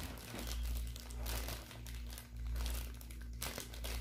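Clear plastic wrapping crinkling and rustling as hands pull it open, in many short, uneven rustles over a steady low hum.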